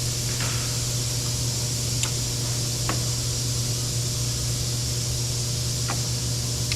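Steady low hum and hiss of the surroundings, with a few faint, sharp clicks spread through it as electrical connectors in a car door are plugged back in.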